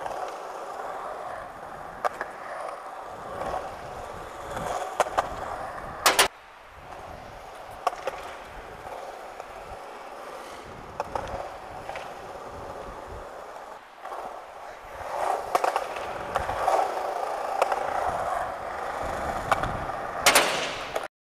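Skateboard wheels rolling on smooth concrete as the board is pushed along, a steady rolling hiss broken by small clicks and knocks. Two sharp loud clacks come through, one about six seconds in and one near the end.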